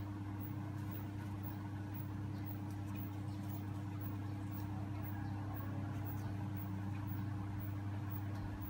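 Steady low hum from a motor or electrical appliance, with a few faint light ticks over it.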